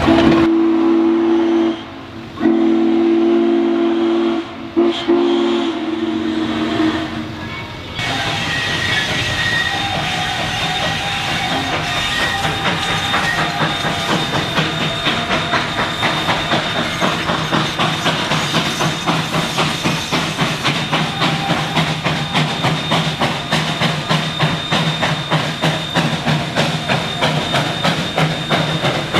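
Narrow-gauge steam locomotive's chime whistle sounding several blasts, then, from about eight seconds in, its exhaust chuffing in a quick, even beat as it works hard pulling its train uphill.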